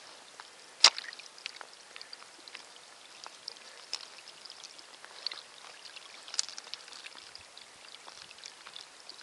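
Rainwater running in a shallow gravel rivulet, stirred by a hand: a faint hiss of trickling water full of small irregular splashes and drips, with one sharp, loud tap about a second in.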